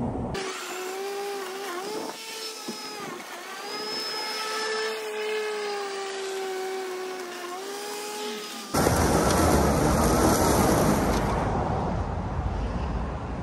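Atlas 80-volt battery lawn mower's electric motor whining at a steady pitch that sags briefly a few times as it takes load. About nine seconds in, the sound switches suddenly to a louder, rough rushing noise.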